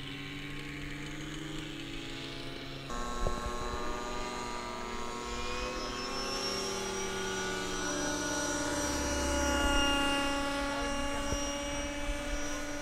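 Radio-controlled model autogyro's engine and propeller running at high power as it takes off and climbs, a steady buzzing with a slowly shifting pitch. The sound changes abruptly about three seconds in and is loudest near ten seconds in as the model passes closest.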